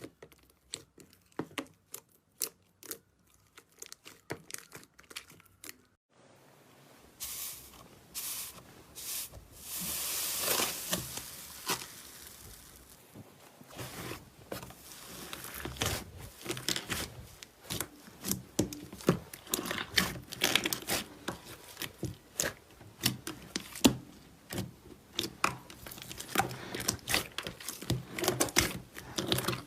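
Slime being squeezed and stretched by hand, giving irregular crackling clicks and pops. About six seconds in the sound changes abruptly to a denser, louder crackle, with a tearing hiss around ten seconds in.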